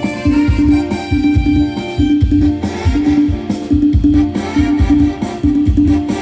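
Instrumental music with a steady drum beat and a repeated melodic figure.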